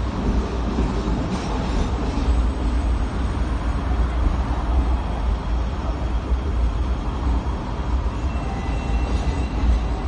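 Hong Kong double-decker tram running along its rails, heard from on board: a steady low rumble of wheels on track and running gear. A faint high whine comes in briefly near the end.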